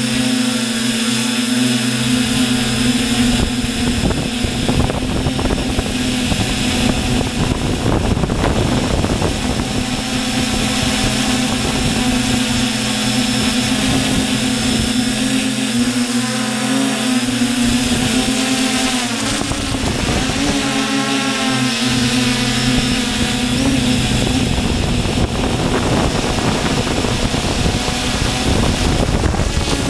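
Multirotor drone's electric motors and propellers, heard from its onboard camera: a steady buzzing hum with a rushing hiss. The pitch wavers up and down from about halfway through and again near the end as the motors change speed while it manoeuvres.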